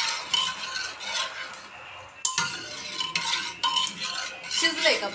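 A metal spoon stirs cooked rice and milk in a pressure cooker, scraping and clinking against the pot again and again.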